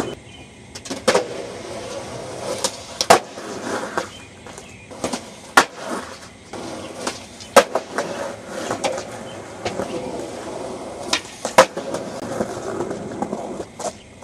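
Skateboard wheels rolling on a concrete walk, broken by about eight sharp clacks of the board popping and landing during repeated trick attempts.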